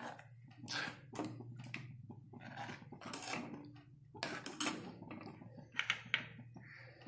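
Steel spoon stirring milk in a metal pan, scraping and clinking against the bottom and sides in irregular strokes.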